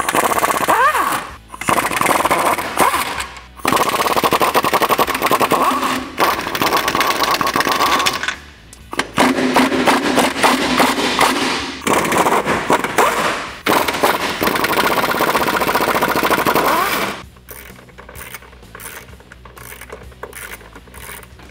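Pneumatic impact wrench with a 13 mm deep socket hammering nuts off running-board mounting studs, in repeated bursts of a few seconds each. The hammering stops about seventeen seconds in.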